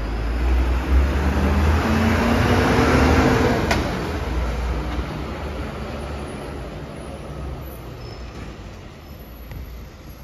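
MAN TGM 18.290 recycling truck's six-cylinder diesel engine pulling away and driving past, its note rising as it accelerates, then fading as it moves off. A single sharp click about four seconds in.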